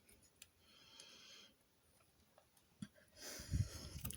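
A person breathing near the microphone, with a louder nasal exhale about three seconds in. A few faint clicks come from LEGO pieces being handled.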